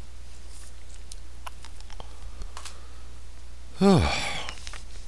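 A man with a bad cough coughs once about four seconds in: a short cough that drops in pitch. It comes over a steady low hum, with faint small clicks before it.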